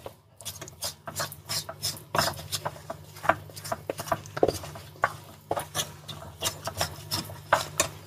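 Spatula stirring and scraping a thick, pasty milk-powder barfi mixture around a metal kadhai: irregular short scrapes and taps against the pan, over a low steady hum.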